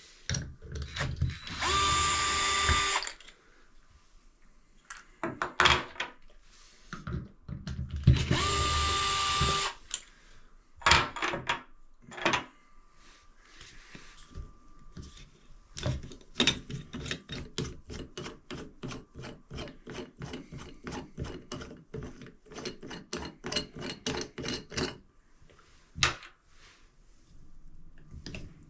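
Cordless drill running in two short bursts with a steady whine, then a long series of light clicks and taps as parts of a shower valve are worked on.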